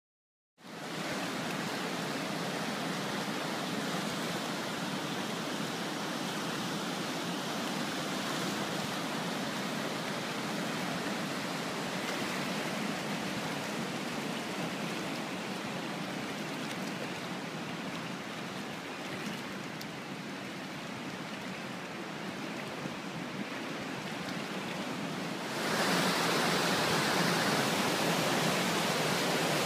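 Rapids of Cato Falls on the Manitowoc River rushing at moderate-to-high flow: a steady rush of water that starts half a second in and turns louder about 25 seconds in.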